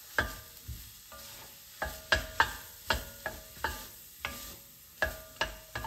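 Wooden spatula stirring and scraping sautéing vegetables and tomato paste in an enameled cast-iron pot, knocking against the pot about a dozen times at an uneven pace, with a faint sizzle underneath.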